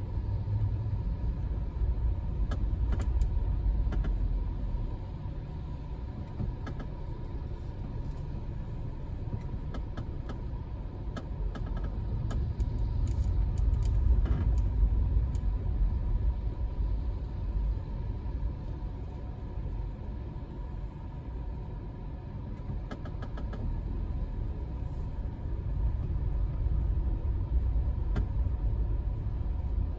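Low, steady rumble of a car's engine and road noise heard from inside the cabin, creeping in slow traffic and swelling and easing slowly in loudness, with scattered light ticks.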